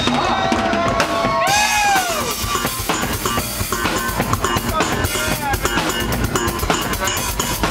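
Live funk band playing a groove, the drum kit's kick and snare hits prominent throughout, with sliding, bending notes in the first couple of seconds.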